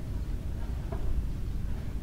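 Wind buffeting the microphone: an irregular low rumble.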